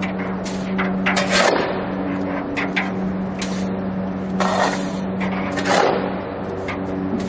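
Steady electrical hum of a steel-melting induction furnace, one low tone with fainter overtones, with scraping and knocking strokes of metal tools over it, the loudest about a second in and twice near the end.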